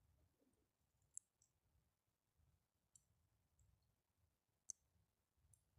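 Near silence broken by four faint, sharp clicks, the loudest about three-quarters of the way through: fingers snapping the seed core and pith out of a halved green bell pepper.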